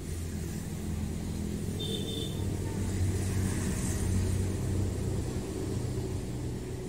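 Road traffic passing close by: a low vehicle rumble that swells about three to four seconds in as a vehicle goes past, then eases off.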